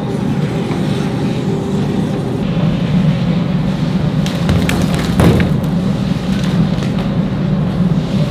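Steady low machine hum, with a few knocks and clatters about four to five seconds in.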